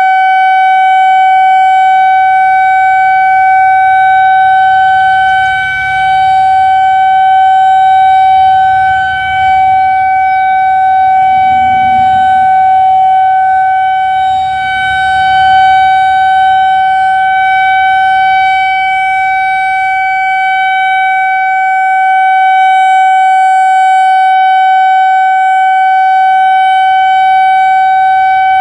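Whelen 2000R/400R outdoor storm warning siren sounding a loud, steady single-pitch tone, with a few brief dips in loudness. It is the siren's routine monthly test signal.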